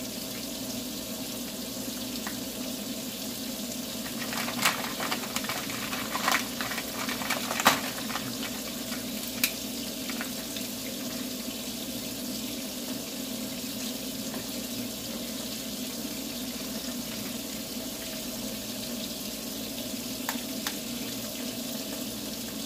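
Kitchen tap running steadily, its stream of water splashing into a stainless steel sink. A few short, sharp clicks stand out between about four and ten seconds in.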